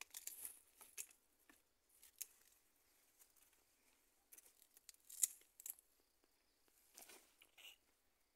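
Faint rustling and snapping of garden plants being pulled and picked by hand, in scattered short crackles with one sharper snap about five seconds in.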